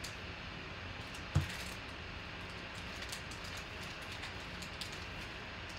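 Trading cards being handled and set down on a table mat: light taps and faint ticks, with one sharper tap about a second and a half in, over a steady low hum.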